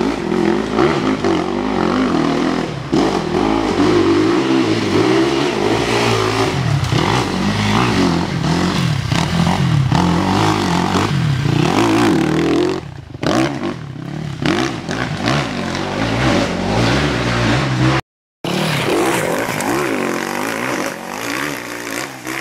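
Dirt bike engine revving up and down with the throttle as it is ridden over rough ground. It drops away about 13 seconds in, and after a brief break the sound of a bike comes back, quieter.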